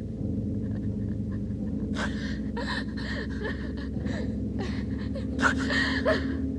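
A woman gasping and panting in short, ragged breaths that start about two seconds in, over a low, steady drone on a film soundtrack.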